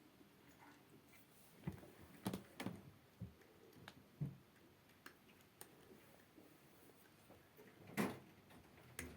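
Quiet room tone broken by a few scattered soft knocks and clicks, the loudest about eight seconds in.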